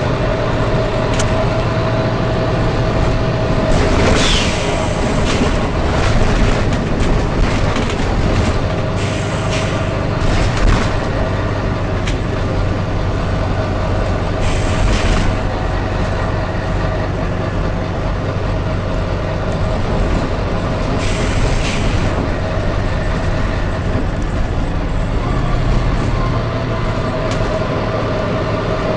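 Volvo B9TL double-deck bus running with a steady engine hum, broken by several short 'tsh' hisses from its compressed-air system.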